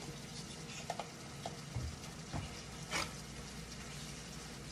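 Ground beef sizzling steadily as it fries in a pan, with a few scattered taps and scrapes of a spoon and spatula against the pan, the loudest about three seconds in.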